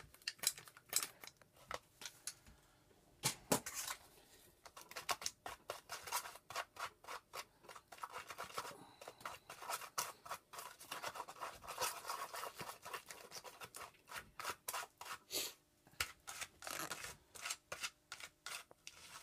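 Irregular clicks, taps and scraping from hand work with a tube of resin, filling the gaps at the seams of a resin model building kit.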